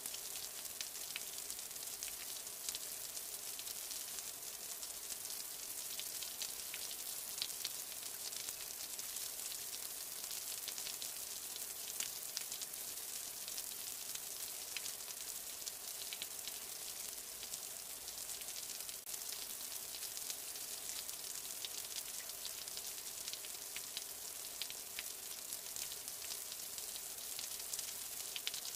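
Steady rain: a dense, even hiss of falling drops with many small distinct drop ticks, unchanging throughout.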